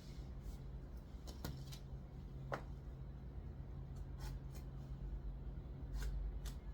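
Scattered light clicks and a short squeak from small handwork, over a steady low hum.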